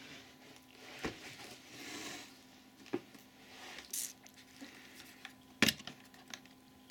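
Plastic clicks, knocks and short rubbing sounds from handling an AEG UltraOne vacuum cleaner's body and attachments, with one sharp click near the end, the loudest sound.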